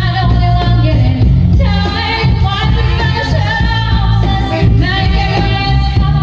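Live band music with singing: voices at microphones over electric guitar, bass and a steady beat.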